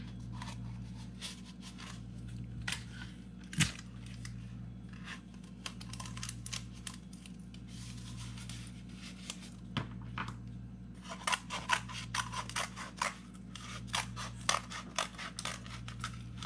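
A cardboard toilet-paper tube being handled and folded, with scattered rustles and a few sharp clicks, then from about eleven seconds in a quick run of scissor snips cutting through the cardboard. A steady low hum sits underneath throughout.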